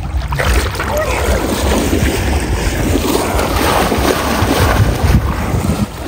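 Legs wading quickly through knee-deep floodwater, a continuous splashing and sloshing, with wind rumbling on the microphone.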